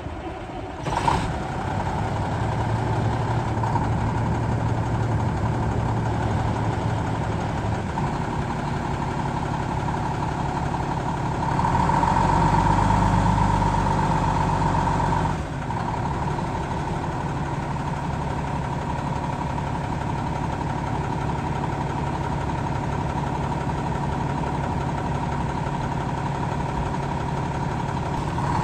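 Diesel engine of a 2006 International 7600 dump truck idling steadily. There is a sharp loud moment about a second in, and the engine runs louder for about four seconds from roughly eleven seconds in before settling back to a steady idle.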